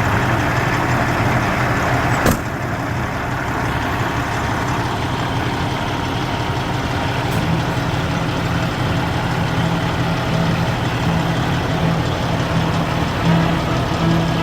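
Freightliner Classic semi truck's diesel engine running steadily, with a sharp click about two seconds in and a fainter click about seven seconds in.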